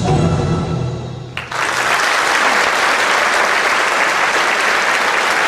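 Dance music for the stage number stops about a second and a half in. A large theatre audience then applauds, a steady dense clapping.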